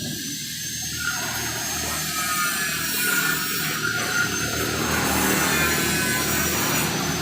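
Steady machine noise with a constant thin high whine over a low rumble, swelling slightly in the middle.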